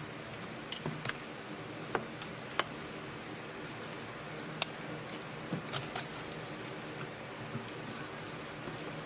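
A utensil clicking against a bowl while pasta salad is stirred, about half a dozen sharp clicks spread irregularly over a steady low hum.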